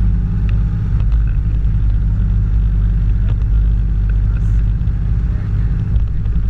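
Outboard motor on an inflatable boat running at a steady idle: a constant low hum.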